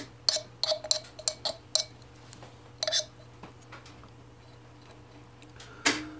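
Short, light clicks and scrapes from a razor blade and a saxophone palm key with its cork being handled. Several come in the first two seconds and one just before three seconds, then a single sharper click near the end.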